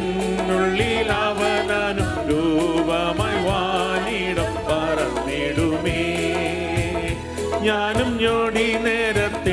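Keyboard-led music of a Malayalam Christian worship song: an ornamented, wavering melody line over sustained chords and a quick, steady programmed beat.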